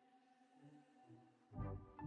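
Quiet background music of soft sustained notes, with a louder, lower passage coming in about a second and a half in.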